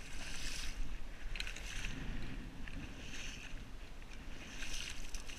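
Wading through shallow marsh water and grass: a splashing swish with each step, coming every second or so, over low wind rumble on the microphone.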